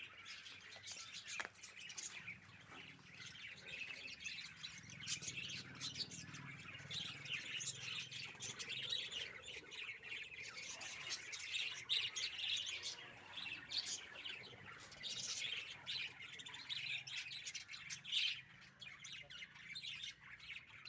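Lovebirds chirping continuously, many quick overlapping chirps and calls.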